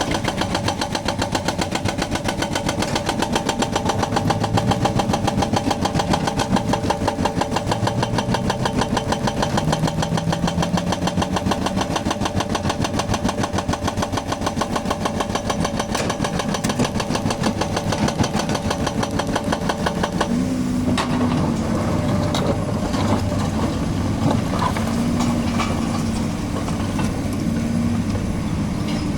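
Hydraulic breaker hammer on a Volvo excavator pounding concrete in rapid, even blows over the running diesel engine. The hammering stops suddenly about two-thirds of the way through, leaving the engine running with a few scattered knocks.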